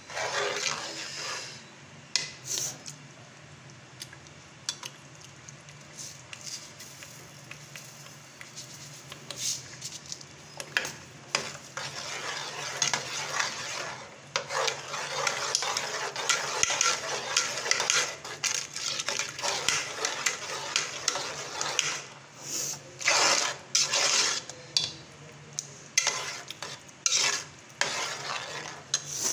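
A long metal spoon stirring and scraping semolina halwa around a metal cooking pot on the stove, with frequent sharp clicks of the spoon against the pot. The stirring is busiest through the middle of the stretch, with quieter pauses near the start and end.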